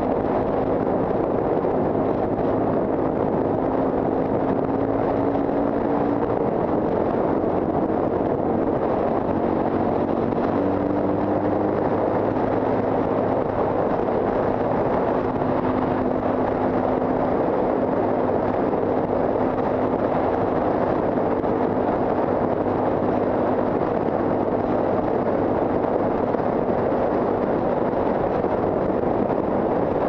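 Steady heavy wind noise on the camera microphone of a 2009 Suzuki DR-Z400SM ridden at about 55 mph, with the bike's single-cylinder engine droning underneath.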